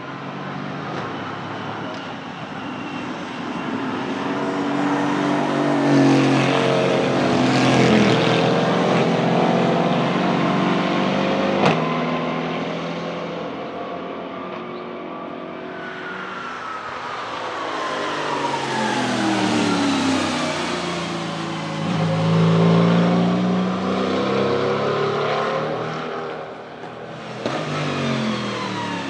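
Mercedes-AMG GT4 race cars passing one after another, their restricted 4.0-litre twin-turbo V8s rising and fading with each pass, the engine pitch climbing and falling. Two brief sharp cracks stand out, one near the middle and one near the end.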